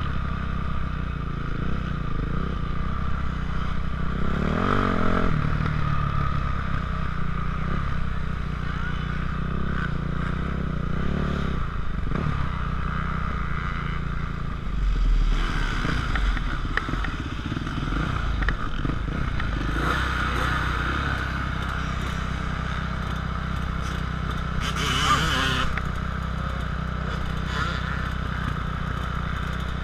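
Yamaha YZF450F four-stroke single-cylinder motocross engine running at low revs and idling, with a brief rev about four seconds in. A short burst of hiss comes about 25 seconds in.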